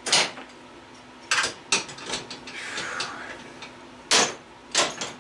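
A handful of sharp metal knocks and clanks, separated by pauses, with some rustling in between: hand tools and sheet-metal stove parts being handled during a teardown.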